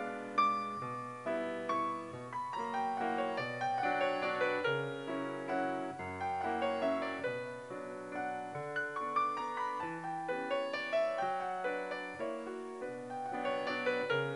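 Background piano music: a solo piano playing a steady flow of separate notes, each struck and fading.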